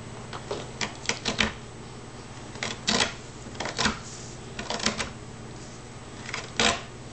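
A hand carving tool cutting into a flat wooden board, with the blade snapping out chips in short clusters of crisp clicks, about five clusters a second or so apart.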